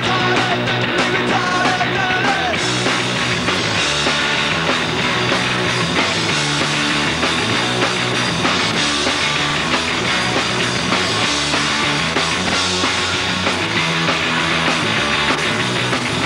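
Pop-punk band playing live on electric guitar, bass guitar and drum kit. A sung vocal line ends about two and a half seconds in, and the band plays on without singing.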